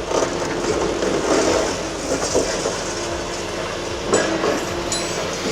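Toy excavator being handled and rolled, a continuous plastic rattling rumble with a few sharper clicks near the end.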